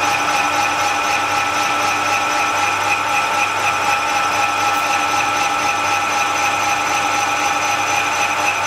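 Metal lathe taking a turning cut on the outside diameter of a model locomotive driving-wheel blank with a carbide insert tool. A steady running sound with several held tones over the hiss of the cut.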